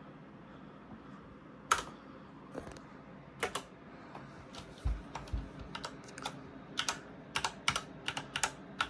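Typing on a computer keyboard: scattered keystrokes that start about two seconds in and grow quicker and more regular in the second half. Two low thumps come about five seconds in.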